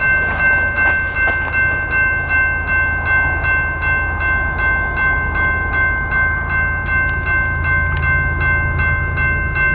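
Freight train rolling past with a steady low rumble, while a high ringing sound repeats about three times a second over it.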